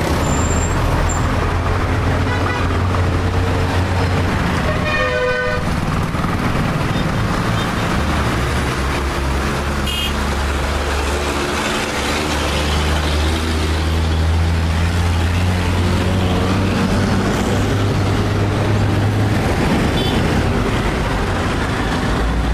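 Busy city street traffic: vehicle engines running steadily, with a horn tooting briefly about five seconds in.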